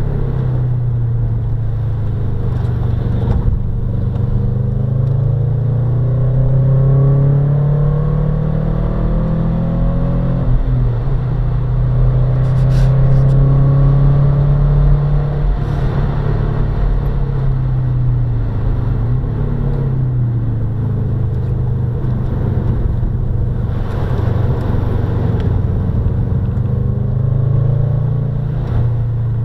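Subaru Impreza's flat-four engine driven hard, its pitch climbing and dropping again and again as it accelerates, shifts and lifts, over a constant heavy rumble.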